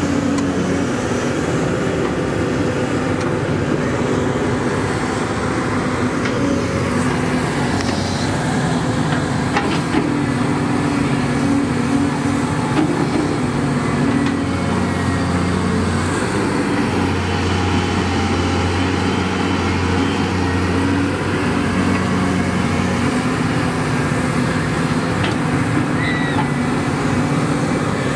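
Caterpillar tracked hydraulic excavator's diesel engine running steadily while the boom and bucket dig soil, its low note changing now and then. A few light knocks sound over it.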